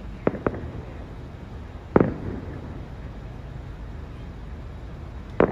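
Aerial fireworks shells bursting: two quick sharp bangs just after the start, a louder boom with a rolling tail about two seconds in, and another boom near the end, over a steady low background rumble.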